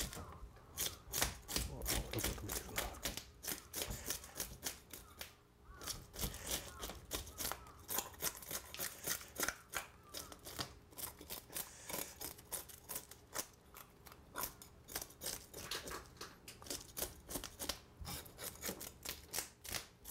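Kitchen knife blade scraping the scales off a sea bream on a wooden cutting board: quick repeated rasping strokes, several a second, with a short pause about five and a half seconds in.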